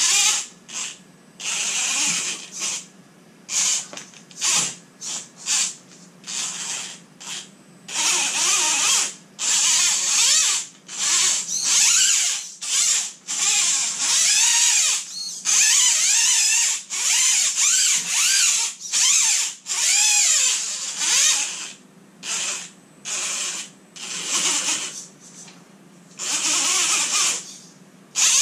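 Electric motor and geared drivetrain of an RC rock crawler whining in repeated short bursts as the throttle is blipped on and off. The pitch rises and falls with motor speed, and a few bursts are held for a second or two.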